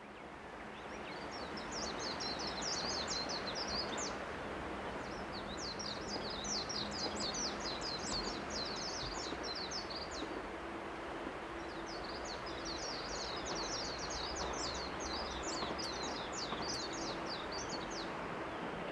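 A small songbird singing three long runs of rapid high chirps over a steady rushing background noise. The sound fades in at the start.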